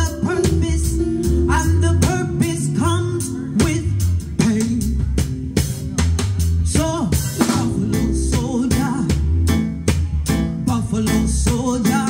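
Live Caribbean soul band playing a reggae-style groove on drum kit, bass and keyboard, with a steady beat and heavy bass pulses. A woman's voice sings over it at times.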